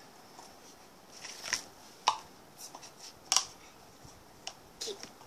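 Clear plastic tub of clay being handled and tipped on a hard surface: several sharp, irregular clicks and knocks, the loudest about two seconds and three and a half seconds in.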